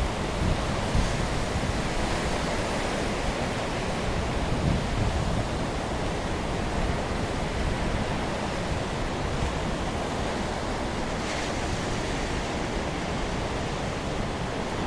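Rough sea surf washing steadily below a pier in a thunderstorm, with wind rumbling on the microphone.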